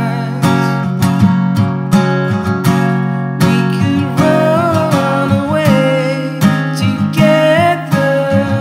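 Acoustic guitar strummed in a steady rhythm. From about four seconds in, a man sings over it.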